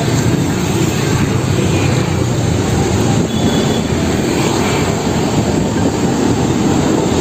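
Mercedes-Benz OH1526 coach bus driving past: steady diesel engine noise and road noise.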